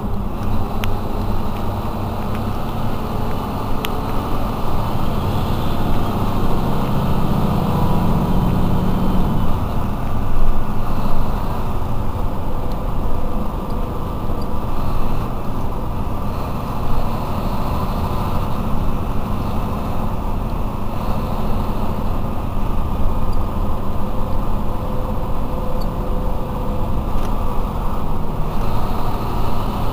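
Mercedes-Benz Citaro C2 city bus's diesel engine idling at a standstill, heard from behind the bus, a steady low rumble that swells for a few seconds about seven seconds in.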